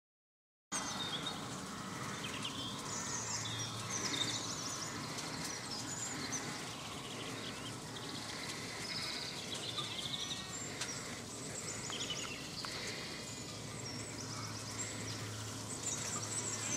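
Small birds chirping and singing over steady outdoor background noise.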